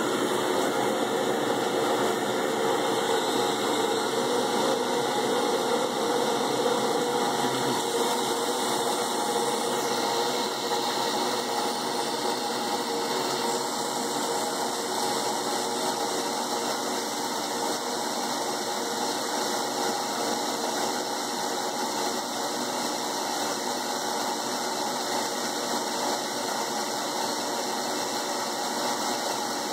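CNC machine spindle running steadily while a fine engraving bit cuts a thin metal sheet: an even machine hum with several held tones over a hiss of cutting noise.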